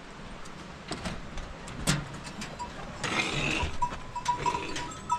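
Goats and sheep bleating inside a stone shelter, with footsteps on gravel and a few sharp knocks as someone walks in.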